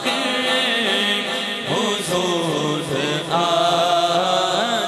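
A man singing a naat unaccompanied into a microphone, in long held notes that slide and waver in melismatic ornaments.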